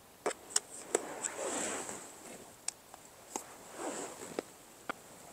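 Wood fire crackling in a small steel mini brazier: scattered sharp pops at irregular intervals over a soft, uneven rustle.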